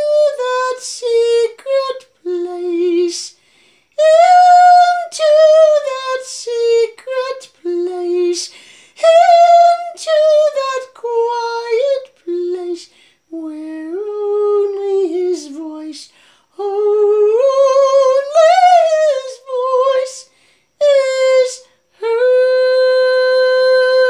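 A woman's voice singing a slow, wordless melody in short phrases with vibrato and audible breaths between them, ending on a long held note.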